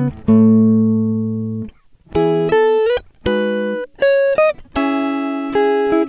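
Music played on guitar: plucked chords struck one after another, each left to ring and fade, with a few notes sliding up in pitch.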